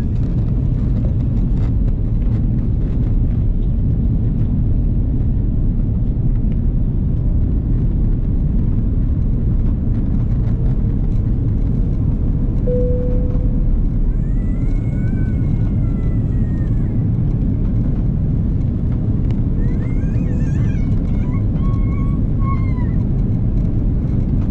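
Steady rumble of an airliner's engines and rushing air heard inside the passenger cabin, with a brief faint tone about halfway through.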